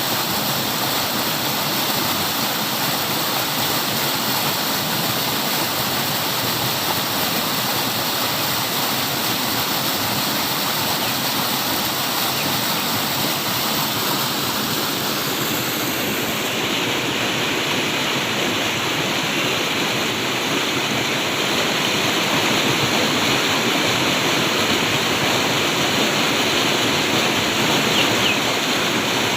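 Flowing water rushing steadily, a dense even wash like a stream or small waterfall. About halfway through the sound's top hiss thins a little and it grows slightly louder.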